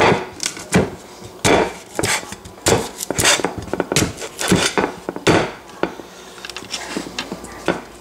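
A fork repeatedly jabbed into raw sweet potatoes to poke holes before microwaving, its metal tines knocking and clicking against the plate beneath. The knocks are sharp and irregular, about one every half second, and thin out near the end.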